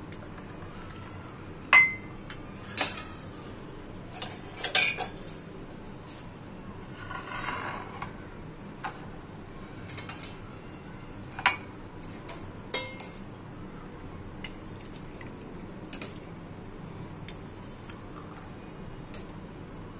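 Kitchen utensils clinking against cookware while a drink is prepared: a dozen or so separate sharp clinks and taps at irregular intervals, with a soft swishing sound about seven seconds in.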